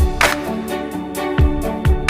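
Background music: sustained instrument tones over low drum hits.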